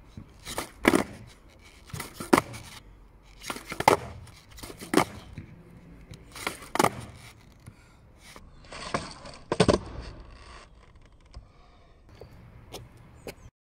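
Skateboard tail popping and wheels slapping back down on asphalt during repeated standing ollie attempts: sharp clacks every second or two, often in quick pairs, with a stretch of scraping about nine seconds in.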